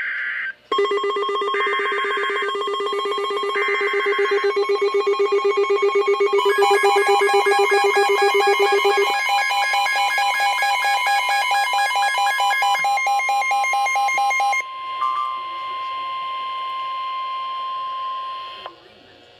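Emergency Alert System tornado warning alert signals: three short screechy digital data bursts of the SAME header over pulsing electronic alarm tones that shift pitch partway through, then a single steady alert tone for about four seconds that cuts off shortly before the end.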